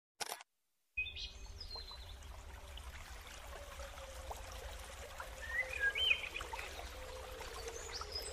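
A brief swish about a quarter second in, then a faint steady rush like a flowing stream with a low hum under it and a few short bird chirps.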